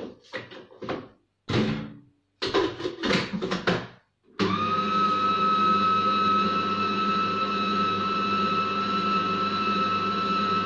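Electric food processor switched on about four seconds in, mixing cake batter: its motor runs with a steady high whine.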